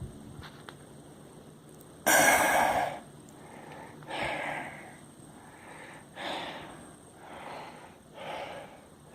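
A mountain biker breathing hard on an uphill climb, with heavy exhales every second or two and a loud burst of breath about two seconds in.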